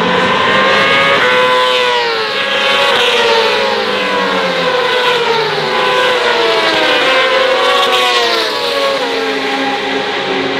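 A pack of Supersport racing motorcycles passing at speed one after another, their engines howling at high revs. Each engine's pitch drops as it goes by, and the passes overlap.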